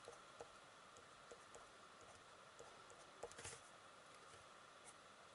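Near silence: faint scattered ticks and light scratches of a coloured pencil stroking on paper, over a faint steady hum.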